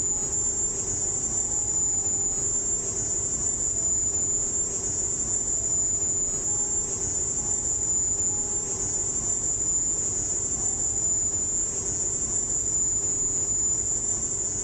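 The recording of the Havana 'sonic attack' sound: a loud, steady, piercing high-pitched shrill that holds one pitch throughout, over a hissy, humming background. Researchers later matched this recording to the calling song of the Indies short-tailed cricket.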